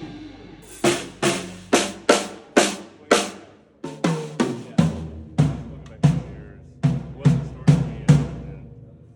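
Drum kit played one drum at a time for a sound check: about six sharp, bright strikes, then after a short gap a run of deeper drum strikes, each left to ring out.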